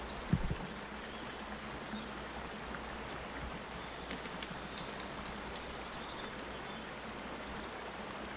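Steady rush of river water flowing, with small birds giving short high chirps a few times in the background and a brief low thump just after the start.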